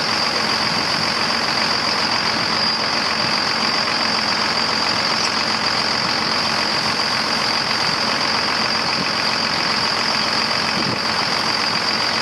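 Steady rushing hiss of water pouring from an opened fire hydrant into a hose, filling a crop-sprayer tank.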